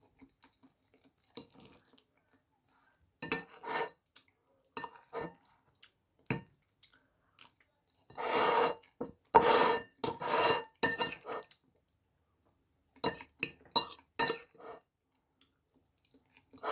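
Metal cutlery clinking and scraping against crockery: scattered single clinks, with a few longer, louder scrapes about eight to eleven seconds in.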